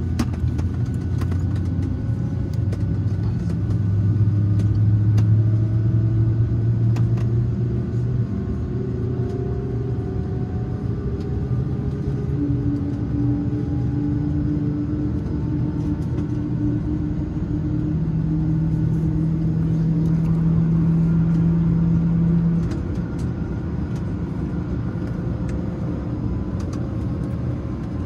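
Steady low rumble and hum inside the cabin of an Embraer 190 parked at the gate with its engines not yet started. A few faint tones glide slowly upward in pitch through it, and a strong low hum cuts off abruptly about three quarters of the way through.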